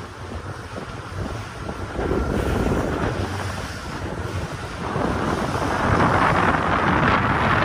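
Motorboat underway: wind buffeting the microphone over the rush of water along the hull and a low rumble, the water rush swelling louder about five seconds in.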